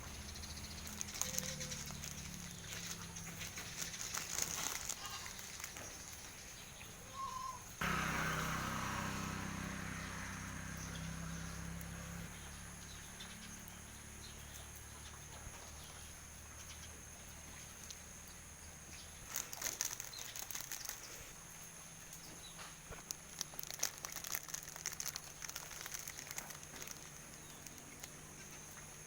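Chickens and goats feeding on bread: scattered sharp pecking clicks and rustling over a low steady hum, with a denser run of clicks in the second half.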